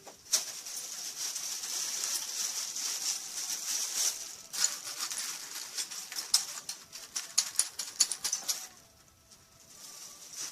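Shards of a broken glass votive candle holder clinking and rattling in a bag as it is moved about, with the bag rustling: a dense run of small clicks and crackles that dies away near the end.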